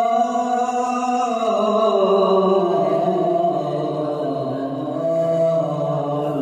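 A man reciting the Quran in the melodic tilawat style, drawing out one long unbroken phrase that slides down in pitch between about one and three seconds in and then holds.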